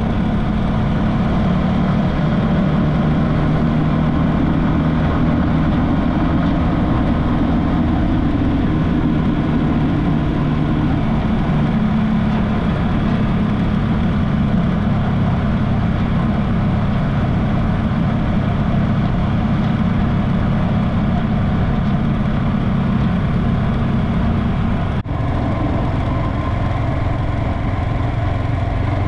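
An engine running steadily at an even pace, with a brief sharp drop about 25 seconds in.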